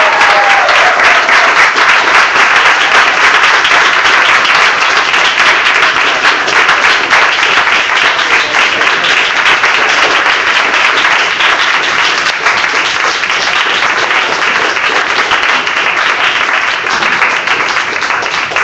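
A crowd applauding: dense, steady clapping that eases off slowly near the end.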